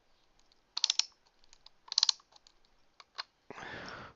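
Sharp little clicks of a small screwdriver and metal screws working on a laptop hard-drive caddy, in three short clusters about a second apart, followed near the end by a short soft hiss.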